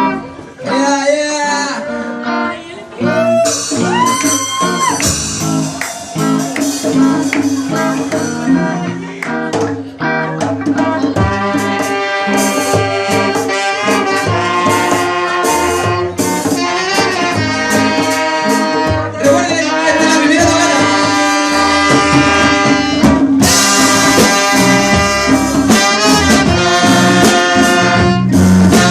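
Music played over a sound system: brass horns carrying the tune, with a singing voice in the first few seconds, and the horns filling out and growing louder about twelve seconds in.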